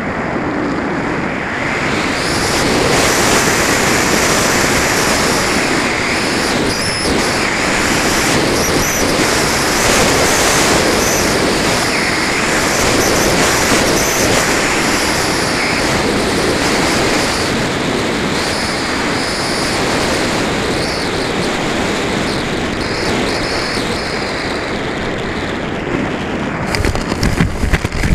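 Wind rushing over an onboard camera's microphone as a Multiplex Heron RC glider glides down. Near the end comes louder, irregular scraping as the glider touches down and slides through grass.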